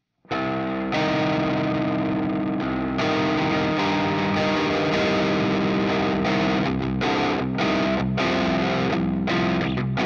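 Electric guitar fitted with Seymour Duncan Jupiter humbuckers, tuned to drop C and played through a high-gain Revv Generator 120 amp: a heavy distorted rhythm riff kicks in suddenly after a brief silence. In the second half it turns to choppy staccato chugs, each cut off sharply by a noise gate.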